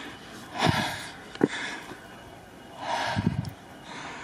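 A person breathing hard, with loud puffs of breath every second or two, as from the exertion of climbing steep stairs.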